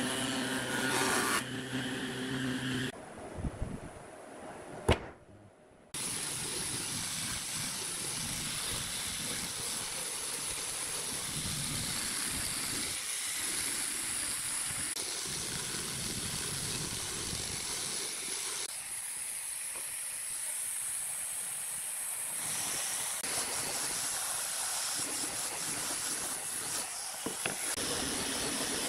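A jointer runs with a steady machine hum for about the first three seconds. After a short lull with a single knock, an angle grinder fitted with a sanding disc runs steadily with an even hiss, sanding pine boards.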